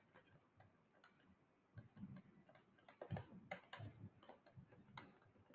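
Near silence with faint, irregular ticks and taps of a stylus writing on a tablet.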